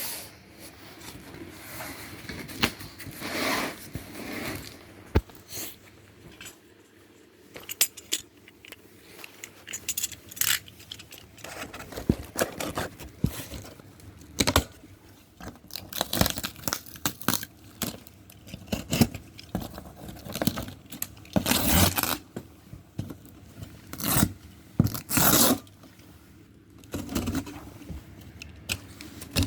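Bulk material being blown through a radial fan and its ducting. It makes irregular scraping and rattling bursts with sharp clicks, heaviest about halfway through and near the end.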